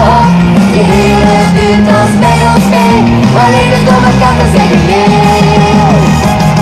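Loud pop song over a sound system, with a woman singing held notes into a microphone over a steady beat and bass.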